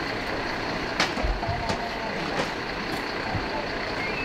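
Fire engine running steadily, with a few sharp knocks, the loudest about a second in.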